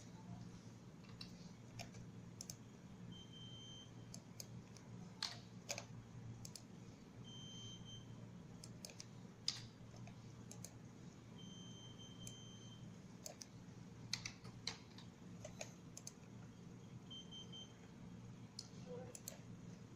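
Scattered clicks of keys being pressed, with four faint high beeps of differing lengths, short and long like Morse code tones; the third beep is the longest. A low steady hum runs underneath.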